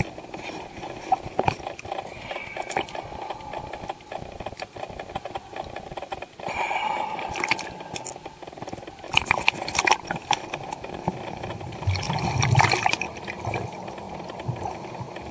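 Water sloshing and splashing around an underwater camera as it moves through the water and briefly breaks the surface, with scattered clicks and crackles. There are several louder surges of splashing, a little after a third of the way in, about two-thirds in and near the end.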